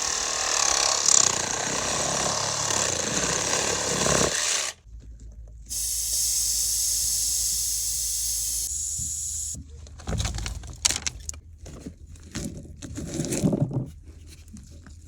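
Compressed air hissing out of a pressure-tested utility line as the test is released. Scattered knocks and scraping follow as the test fitting is handled.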